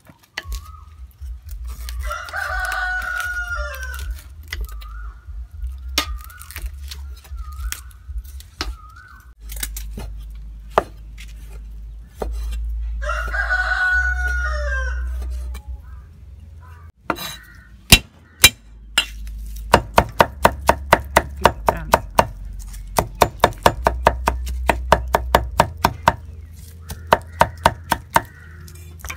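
A rooster crows twice, a long call each time, about two seconds in and again around thirteen seconds. From about seventeen seconds on, a cleaver chops rapidly on a wooden chopping block, about three or four sharp knocks a second, mincing garlic.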